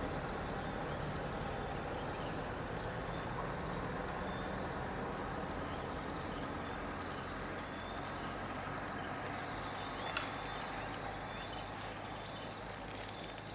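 Steady outdoor ambience: a continuous high insect buzz over a low, even rumble, with one faint click about ten seconds in.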